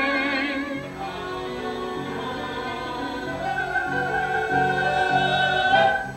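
Musical-theatre song with live accompaniment: voices hold a long note with vibrato that cuts off about a second in, then the accompaniment plays on with repeated low chords under a long held higher line that stops near the end.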